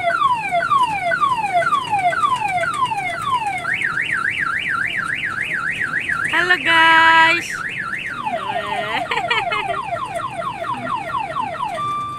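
Electronic car-alarm-style siren cycling through its tones. It starts with a quick run of falling sweeps, then a fast up-and-down warble, then a loud steady blare about seven seconds in. Buzzier falling sweeps follow, and steady beeps begin near the end.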